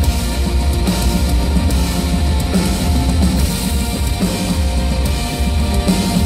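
Live band music played loudly, with drums, a heavy bass pulse and a piano played hard, without words.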